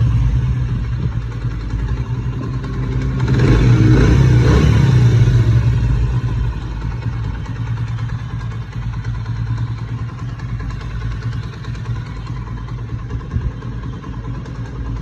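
Motorcycle engine idling, revved up once about three seconds in and settling back to a steady idle about six seconds in.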